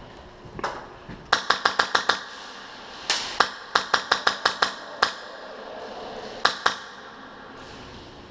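Airsoft gun firing in quick semi-automatic strings of sharp shots: about seven in a row, a pause, a string of about eight, a single shot, then two more near the end.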